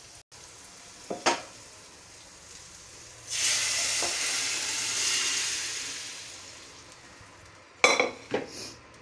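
Cooked arhar dal poured into a hot steel kadai of fried masala and peas, setting off a loud sizzle about three seconds in that dies away over the next few seconds. Near the end a spoon clatters a few times against the steel pan as it is stirred in.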